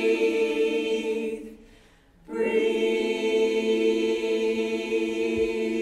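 Choir singing a long held chord on the word "breathe". It fades out about a second and a half in, and after a short pause the choir comes back with another long held "breathe" a little past two seconds in.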